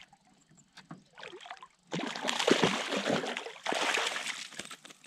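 Water rushing and splashing at the side of a canoe. It starts suddenly about two seconds in and runs in two spells of a second or two each.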